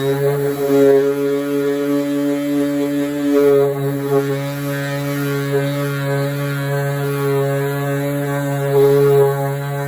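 Electric power sander running steadily with 240-grit paper against the car's body panel: a loud, even motor hum with small swells in loudness.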